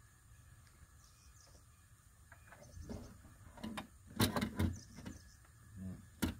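Metal power window regulator and motor assembly knocking and clanking against the car door's inner panel as it is worked into place by hand: a cluster of knocks from about halfway through, and one more sharp knock near the end.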